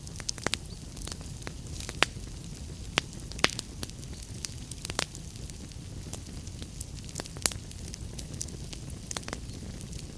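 Wood fire burning in a fireplace: a steady low rumble of flames with irregular sharp crackles and pops, a few louder pops standing out.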